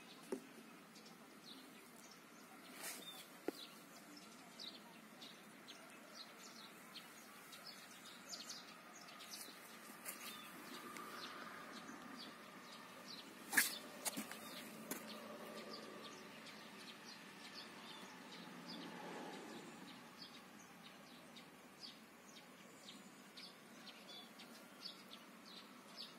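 Faint birds chirping in short, repeated calls, with one sharp click about halfway through.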